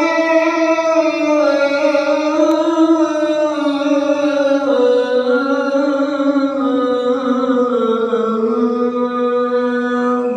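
A muezzin's voice chanting the adhan (call to prayer) in one long, ornamented phrase. The pitch sinks slowly and settles on a held low note near the end.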